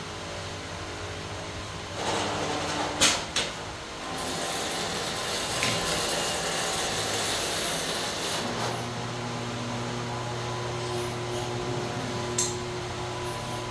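Custom semi-automatic plastic netting machine running through a cycle. Two sharp clicks come about three seconds in, then a hiss for about four seconds. After that the motors hum steadily with a few steady tones, and there is another click near the end.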